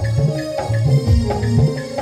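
Live band music through a loudspeaker system: a dholak drum beating a steady rhythm under an electronic keyboard melody.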